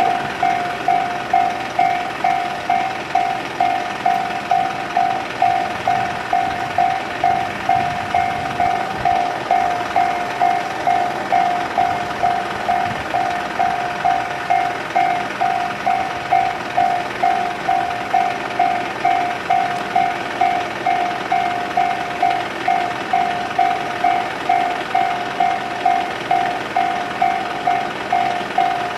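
Japanese electronic level-crossing warning alarm of the Tobu 'sound C' type, ringing steadily at about two strokes a second.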